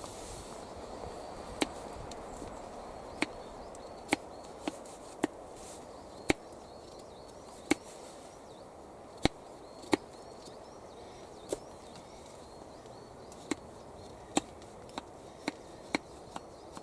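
Axe chopping into wood: sharp single strikes at an irregular pace of roughly one a second, some coming in quicker runs near the end.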